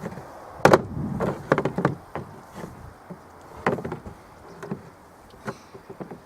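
Irregular knocks and clatter of chicken coop parts being handled and fitted back into place, in several short clusters.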